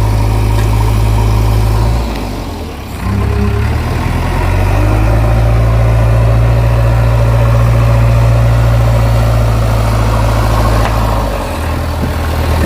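Diesel engine of a JCB 3DX backhoe loader running steadily under load. It drops back about two seconds in, picks up again shortly after and holds steady, then eases off near the end.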